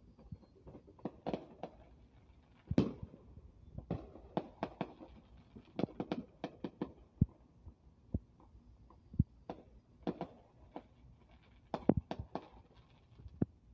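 Distant consumer fireworks going off in a rapid, irregular string of pops and bangs as shots launch and burst into crackling stars. The loudest bangs come about three seconds in and again near the end.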